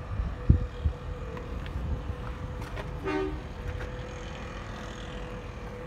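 Low rumbling outdoor noise with a couple of handling knocks about half a second in and a faint steady hum, broken about three seconds in by one short horn-like toot.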